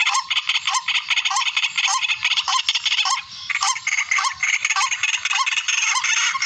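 Recorded calls of rails (tikling), played as a hunting lure: a continuous, fast series of harsh, raspy calls with a short rising note repeating two to three times a second.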